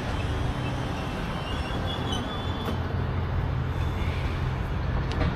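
Sydney Trains electric suburban train running through the station: a steady rumble with a low hum, and a few faint high squeaks about two seconds in.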